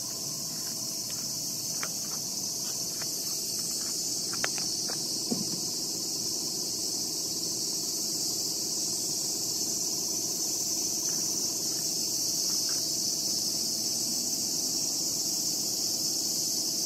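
Steady, high-pitched chorus of insects, shrilling without a break, with a few faint clicks in the first five seconds.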